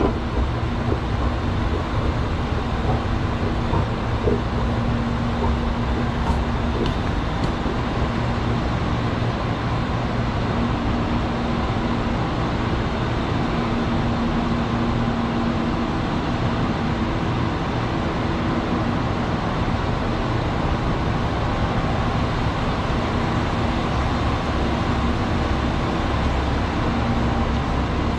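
Steady low mechanical hum and rumble, with a humming tone that swells and fades every few seconds.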